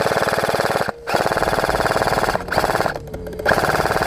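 Airsoft rifle firing on full auto: a fast, even rattle of shots in long bursts, with short breaks about a second in and again around two and a half and three seconds.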